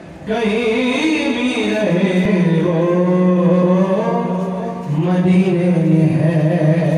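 Melodic vocal chanting in long held phrases over a steady low note, pausing briefly near the start and again about five seconds in.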